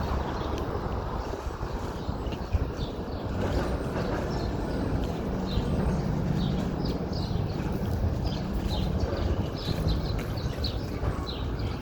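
Steady street traffic rumble, with birds chirping in quick short calls over it from about three seconds in.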